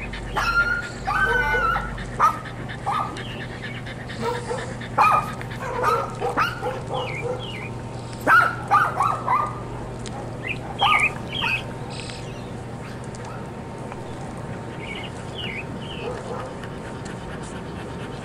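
A small dog yipping and whimpering in short, high calls, with many in the first dozen seconds and a few fainter ones near the end, over a steady low hum.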